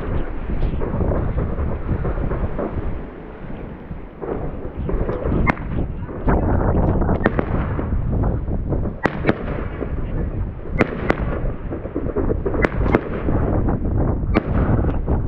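Fireworks going off in a dense barrage: continuous rumbling bangs and crackle with many sharp, loud cracks scattered through it, easing briefly about three seconds in before picking up again.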